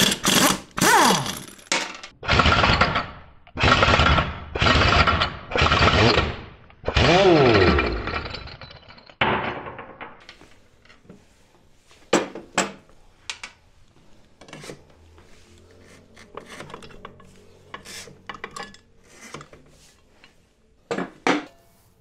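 Pneumatic impact wrench hammering in a run of loud bursts of about a second each on a scooter's 22 mm rear axle nut, the motor's pitch falling away as it spins down after the last burst. After that come lighter, scattered metal clinks of the tool and the loose nut.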